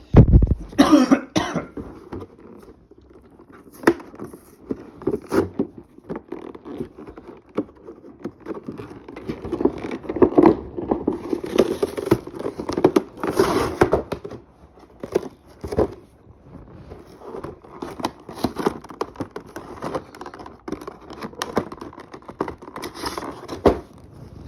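A shopping bag being opened and the boxed figure inside handled: irregular rustling and crinkling with scattered knocks and clicks, loudest in a burst right at the start.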